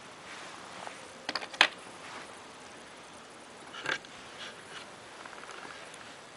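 A few sharp clicks and knocks of tools or small hard parts being handled, the loudest about a second and a half in, another about four seconds in, then a brief faint rattle.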